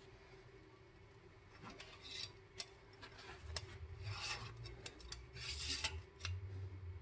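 Engine oil dipstick being handled and slid into its tube: several short rubbing scrapes and a few light clicks, faint.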